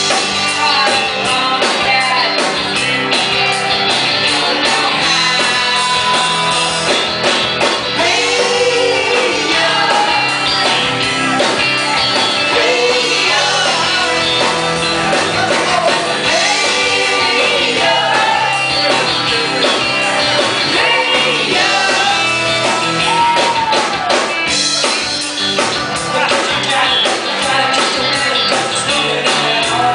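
Two women singing together into one microphone over a live rock band, with electric guitars and a drum kit playing steadily.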